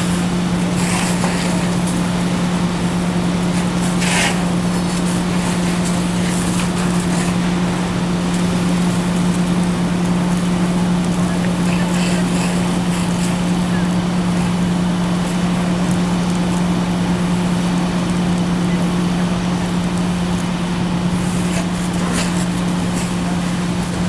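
Fire hose stream hissing as it sprays water onto a burning car, over the steady, unchanging drone of the fire engine's pump engine feeding the line.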